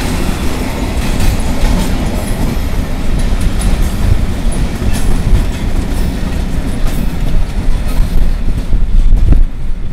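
Freight train wagons rolling past, wheels clattering over the rail joints with faint squeals. The noise thins near the end as the last cars go by.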